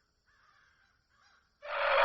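A few faint short calls, then about a second and a half in, a rooster starts a loud crow that is still going at the end.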